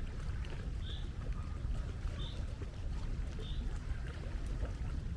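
Seaside ambience: a steady low rumble, with a short high chirp repeating about every second and a quarter.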